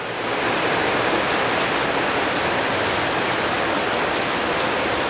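Steady rain pouring down, a dense even hiss with faint drop ticks as it falls on a roof and hard surfaces.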